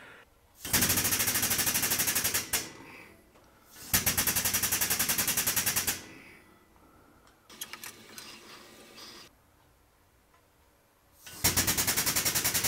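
30-ton hydraulic shop press's pump rattling rapidly in three bursts of about two seconds each as the press bends 8 mm steel bar in a jig, a load of only about 5 tons.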